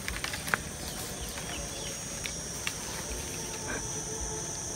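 Steady high-pitched insect drone, with a few scattered short clicks and knocks.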